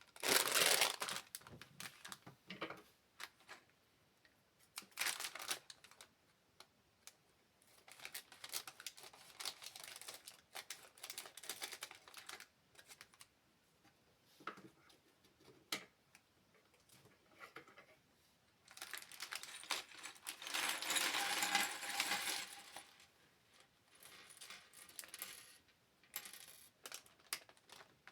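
Small plastic LEGO pieces clicking and rattling as they are handled and tipped out, in irregular bursts with short quiet gaps, the longest burst about two-thirds of the way through.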